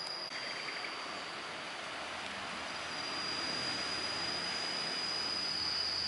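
Insects buzzing in a steady, high-pitched drone over outdoor background noise, growing a little louder about halfway through.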